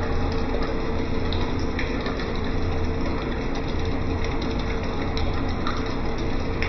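Steady hum of a running electric motor, even and unchanging, with faint light clicks here and there.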